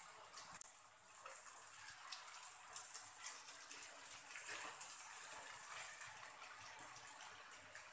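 Crumbled boiled shark meat and onions frying in oil with a steady sizzle, while a metal slotted spoon stirs and scrapes through it, clicking against the pot, with one sharper clack about three seconds in.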